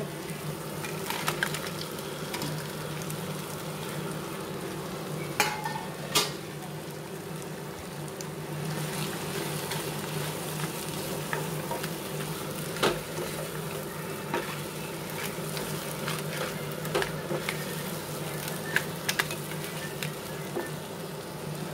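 Fried crab pieces sizzling in a pan of spiced onion-tomato masala as they are stirred with a wooden spatula. The sizzle is steady, with a few sharp knocks of the spatula against the pan at irregular times.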